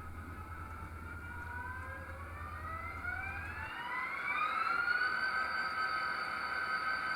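ESU LokSound sound decoder in an HO-scale Scaletrains EMD GP30 model playing the diesel startup sequence through the model's small speaker. A whine rises in pitch over about four seconds as the engine comes up, then settles into a steady idle. A low hum drops out about halfway through.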